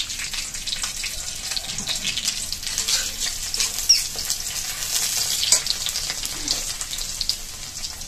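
Sliced onions and green chillies sizzling and crackling in hot oil in a metal kadai, stirred with a steel spatula that scrapes against the pan. A couple of sharper spatula knocks come around the middle.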